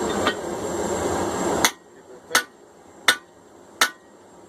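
A steady rushing noise cuts off suddenly after about a second and a half. Then come four evenly spaced hand-hammer blows on hot steel, a little under one a second, each with a short metallic ring, driving the drift through the forged hammer eye.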